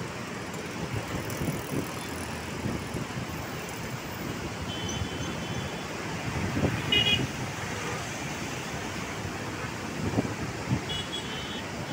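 Steady rush of turbulent river water below a barrage, with wind buffeting the microphone. Short vehicle horn toots sound about five seconds in, again around seven seconds, and near the end.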